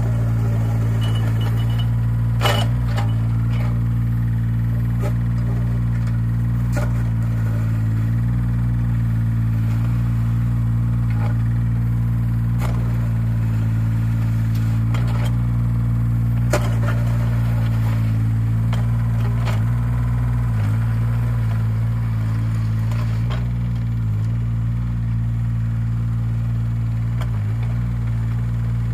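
JCB 8018 mini excavator's diesel engine running steadily while the bucket works loose gravel. A few short, sharp knocks and scrapes of the bucket in the gravel stand out now and then.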